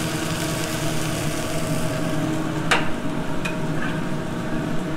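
Chicken Francaise cutlets frying in a sauté pan, a steady sizzle over the hum of kitchen fans. A sharp metal clank comes a little over halfway through, with a lighter click just after.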